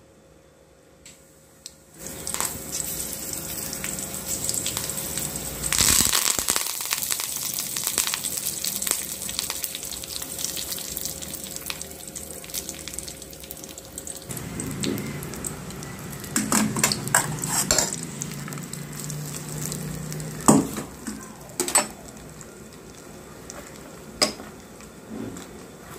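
Hot oil sizzling as a tempering of mustard seeds, curry leaves and dried red chillies fries in a small steel kadai, starting about two seconds in. Several sharp clinks of a steel spoon on the steel vessels come near the end.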